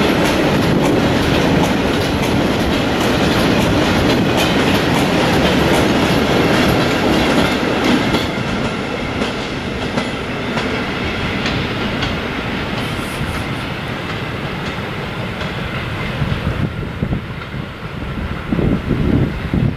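Container flat wagons of a freight train rolling past, the wheels clicking over rail joints. The sound is loud at first and thins out and softens after about eight seconds.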